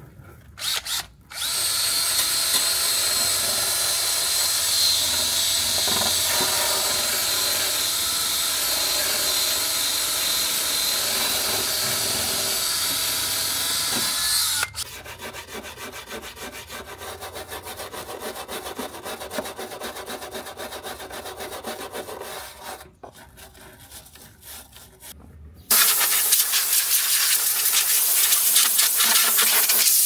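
Cordless DeWalt drill spinning a wire brush against the RV water heater's rusty metal access door, a steady whine with grinding for about 13 seconds, stripping the rust before priming. It stops abruptly and gives way to a quieter rough scraping. After a short lull, compressed air from a hose hisses loudly near the end, blowing the dust off.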